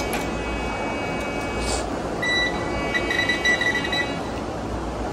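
Electronic beeping from the hotel's security screening equipment: a faint steady tone, then a louder, higher beep that comes in about two seconds in and lasts about two seconds, with a short break near the three-second mark. A steady machine hum runs beneath it.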